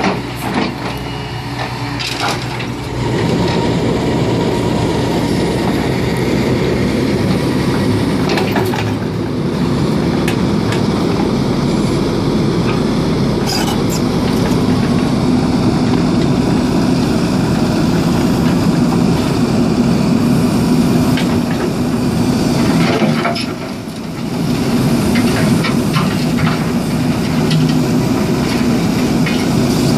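Tracked excavator diesel engines running under hydraulic load, growing louder about three seconds in, with scattered cracks and crunches as a concrete drainage channel is broken up by hydraulic crushing shears and the rubble is scraped with a toothed bucket.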